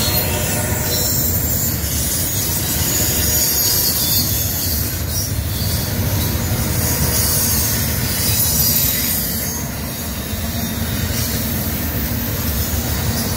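Double-stack intermodal container cars of a freight train rolling past at speed: a steady, loud low rumble of steel wheels on rail, topped by a high hiss with thin whining tones from the wheels.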